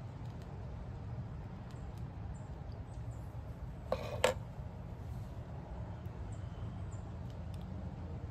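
Soft puffing on a freshly lit tobacco pipe, with one short breathy puff about four seconds in, over a steady low background rumble.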